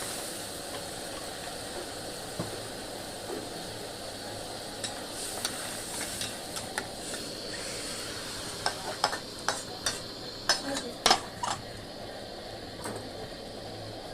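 Metal spoon stirring in a pan of curry gravy over a steady sizzling hiss, with a run of sharp clinks against the pan, loudest about nine to eleven seconds in.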